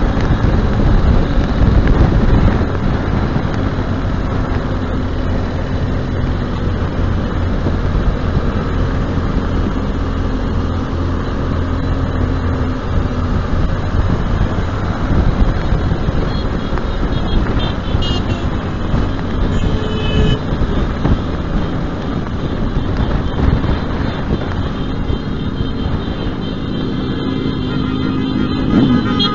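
Motorcycle engine running steadily at road speed under heavy wind rumble on a bike-mounted microphone. Two short high tones sound about two-thirds of the way through.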